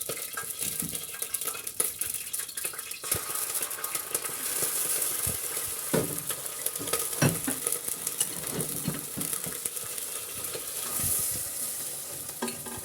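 Chopped pepper, garlic and onion sizzling in hot oil in a pot while being stirred, with a utensil knocking and scraping against the pot now and then, the clearest knocks about halfway through.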